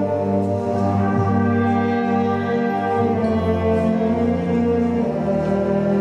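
Brass band playing slow, held chords, the chords changing about a second in and again near the end.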